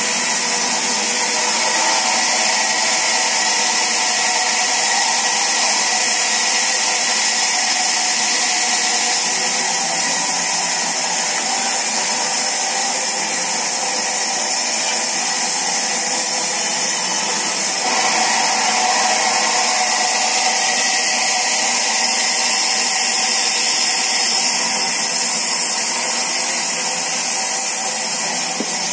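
Sawmill's powered saw running steadily as it cuts wood, a loud, even high-pitched hiss with a steady machine hum beneath. Its tone shifts slightly about eighteen seconds in.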